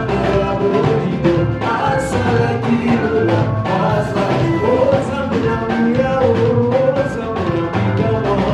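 Live gospel praise music: singing over a band with a steady drum beat.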